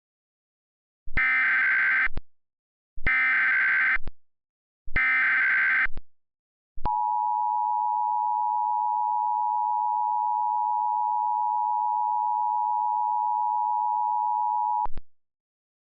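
Emergency Alert System tones: three one-second bursts of SAME header data, a second apart, then the steady attention tone held for about eight seconds.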